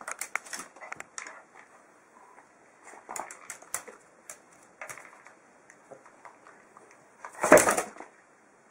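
A dog's paws and claws tapping and scraping on an aluminium box lid as it paws at a rubber ball on it, in scattered short clicks. About seven and a half seconds in comes one much louder clatter, under a second long.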